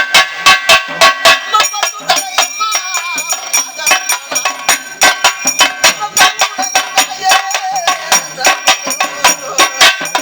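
Pambai drums beaten in a fast, even rhythm of about four strokes a second, with ringing cymbals. For a few seconds near the start the strokes thin out while a voice sings a wavering line, then the drumming picks up again.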